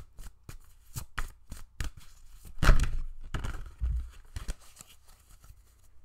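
A deck of oracle cards being shuffled and handled: irregular snapping card slaps and clicks, with a louder thump about two and a half seconds in. The handling thins out over the last second or so.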